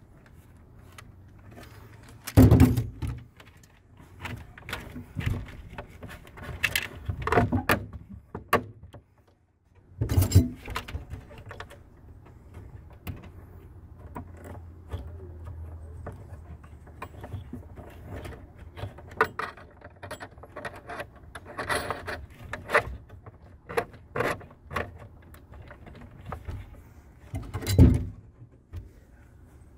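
Irregular clinks, rattles and knocks of metal parts (wires, conduit locknuts, screws) being handled in and against the metal enclosure of an RV automatic transfer switch. Three knocks stand out as louder: about two and a half seconds in, about ten seconds in, and near the end.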